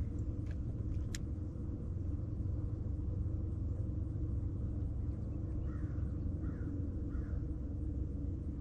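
Boat motor running with a steady low rumble. There are two short clicks about a second in, and a few faint bird calls near the end.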